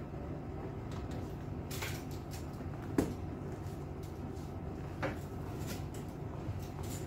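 A few short knocks and clicks from a handbag being handled, the sharpest about three seconds in, over a steady low hum.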